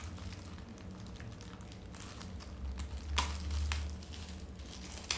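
Clear plastic packaging bag crinkling and rustling as it is handled and unwrapped, with a louder rustle about three seconds in.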